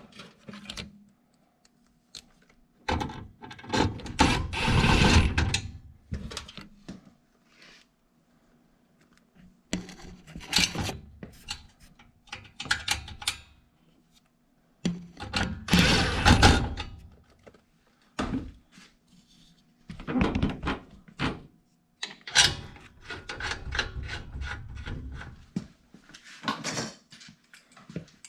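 Intermittent clunks, scrapes and rubbing of tools and metal parts as the gas valve and burner manifold are fitted and tightened down inside a gas furnace, in irregular bursts with short pauses between.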